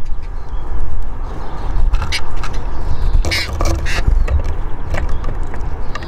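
Finches at a balcony bird feeder: a few short fluttering and rustling bursts, about two and three seconds in, over a low steady rumble.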